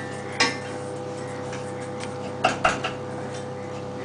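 Wooden spoon stirring rice in a metal pot, knocking lightly against it: one tap near the start and two close together a little past halfway, over a steady low hiss.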